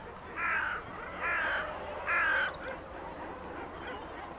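A bird giving three harsh, cawing calls, about a second apart.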